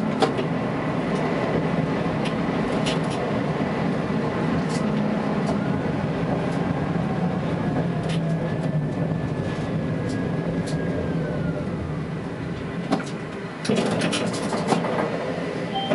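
Tatra T3S tram running along the track, heard from inside the driver's cab: a steady rolling rumble and motor hum with short clicks from the wheels, and a faint whine that rises and falls in the middle. About 14 s in, a louder burst of clattering.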